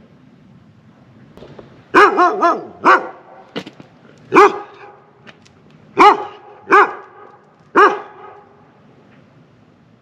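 A dog barking: a quick run of barks about two seconds in, then single barks every second or so, about six or seven in all.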